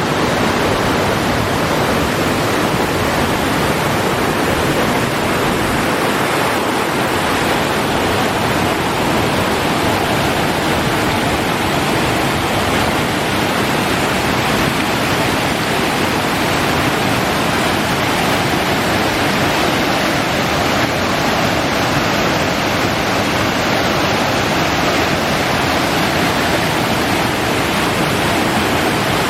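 Waterfall rushing steadily: a loud, unbroken wash of falling water.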